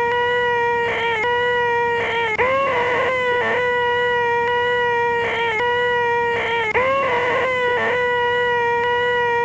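A man's voice making a loud, nasal, high 'eeeeh' screech, the 'most annoying sound in the world', held at one steady pitch for a few seconds at a time and repeated over and over with brief breaks for breath.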